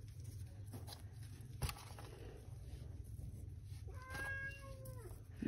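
Low background hum with a single click about one and a half seconds in, then one drawn-out animal call lasting about a second, dropping in pitch at its end.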